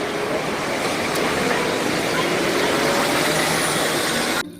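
Steady rush of running water over a muddy toy bus as it is rinsed clean, cutting off suddenly near the end.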